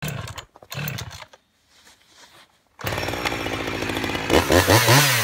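Chainsaw engine that cuts in suddenly about three seconds in and runs steadily, then is revved up and down several times near the end. A few short sounds and a near-quiet gap come before it.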